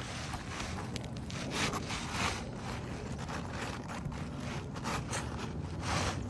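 Scraping and rustling on asphalt roof shingles in irregular bursts, with a few small clicks, as shingles are worked during a shingle repair.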